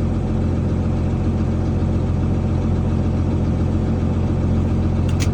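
Farm vehicle's engine idling steadily with a low, even drone, heard from inside the cab. A short sharp click near the end.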